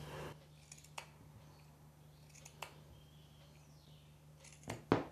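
A few faint, sparse clicks and light handling sounds as the blouse fabric is folded into small tucks, the loudest a close pair of clicks near the end.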